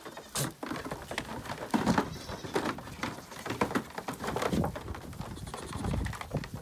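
Young goat kids bleating a few times, among the clatter of small hooves knocking on hollow plastic play furniture.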